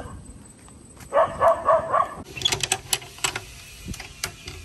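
A dog barking in a quick run of about five barks, then a spatter of clicks and rustles.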